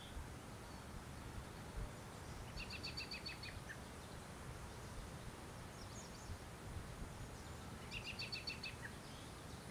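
Faint outdoor ambience with low background noise and a songbird singing a short, rapid series of repeated notes twice, about three seconds in and again about eight seconds in.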